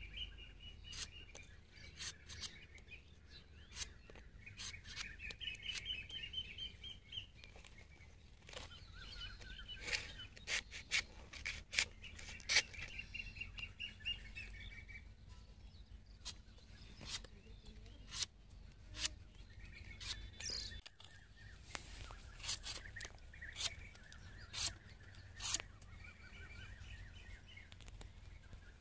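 Curved hook-bladed knife chopping and slicing into tender palmyra (toddy palm) fruits, in irregular sharp cuts, often one or two a second. Small birds trill and chirp repeatedly in the background.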